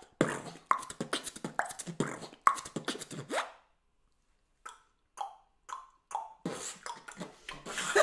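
Beatboxed mouth-made impression of a wristwatch ticking: a quick run of sharp clicks with hissy accents for about three and a half seconds. After a short pause comes a sparser, uneven run of clicks that thickens near the end.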